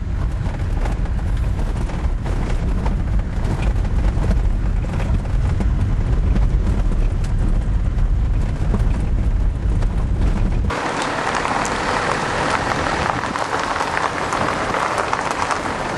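Car driving along a dirt track, heard from inside: a steady low rumble of engine and tyres with road hiss above it. About ten seconds in the sound switches abruptly to a brighter hiss without the low rumble.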